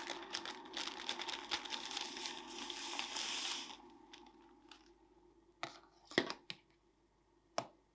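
Pot of water at a rolling boil, bubbling and crackling for about four seconds as potato gnocchi go in. Then a few sharp clinks, the loudest just after six seconds, from a wire spider strainer knocking against the stainless-steel pot.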